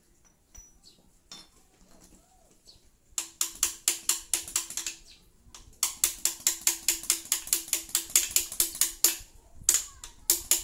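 Socket ratchet wrench clicking rapidly as a bolt is turned, about five or six clicks a second. It starts about three seconds in, pauses briefly, runs again, then gives a short last burst near the end.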